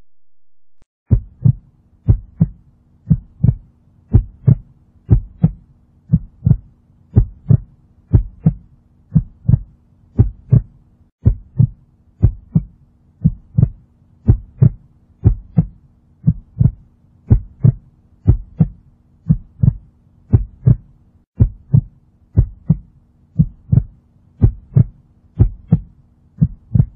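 Heartbeat sound effect: steady lub-dub double thumps, about one a second, over a faint steady hum, starting about a second in.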